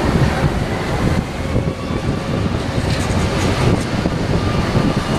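Zurich Cobra low-floor electric tram rolling past close by on street track, with a steady rumble of wheels on rail and running gear.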